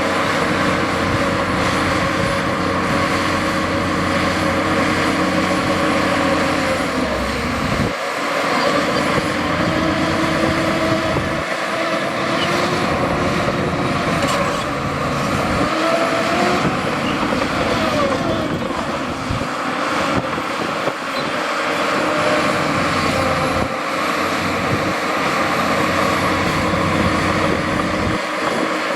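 Diesel engines of heavy earthmoving machinery running continuously, with the engine note rising and falling several times as the machines work.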